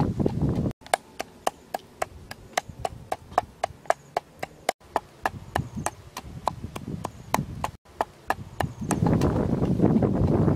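Wooden pestle pounding a chili-and-herb paste in a clay mortar: a steady run of sharp knocks, about four a second. About nine seconds in, a louder rush of noise takes over.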